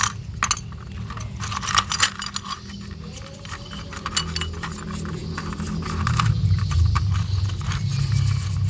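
Small metal carburettor parts clinking and tapping as they are handled, in a quick irregular series, over a low steady hum that swells near the end.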